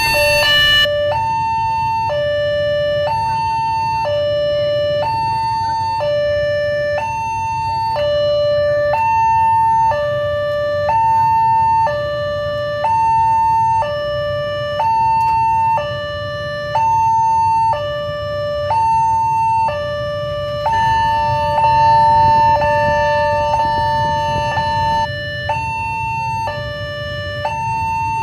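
Railway level-crossing warning siren, an electronic two-tone alarm switching between a high and a low tone roughly every second, warning that a train is approaching the closed crossing. For a few seconds past the middle the high and low tones sound together.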